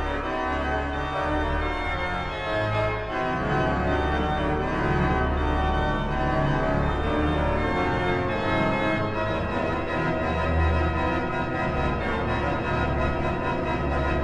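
Music of sustained organ chords over a deep held bass, the chords changing every few seconds.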